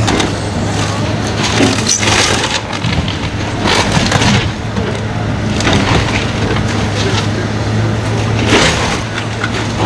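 House demolition: a heavy machine's engine runs steadily while the wooden structure cracks, splinters and crashes down in several bursts, about every two seconds.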